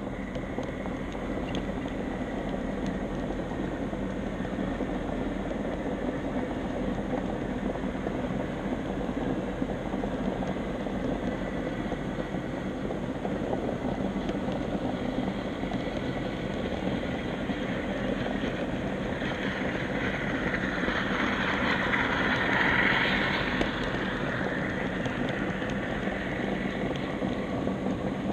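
HO scale model trolley running along its track, a steady mechanical whir of its small motor and wheels on the rails heard from on board. A louder, higher hiss swells up about twenty seconds in and fades a few seconds later.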